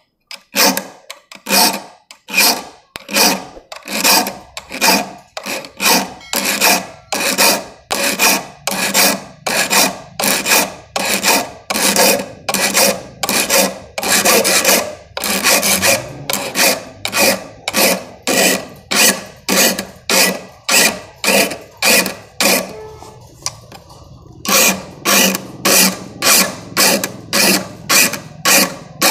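Steel saw file rasping across the teeth of a hand saw, sharpening them in even push strokes about two a second, each stroke forward only with no drag on the return. The strokes stop for about two seconds near the end, then carry on.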